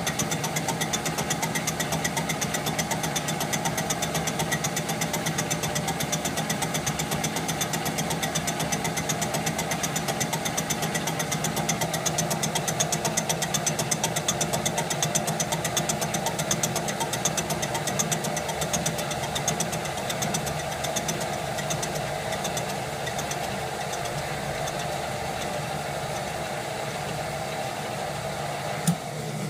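Boxford STS 10x20 lathe running steadily with a fast, even rattle, turning a Stuart steam engine flywheel. A single sharp click sounds near the end.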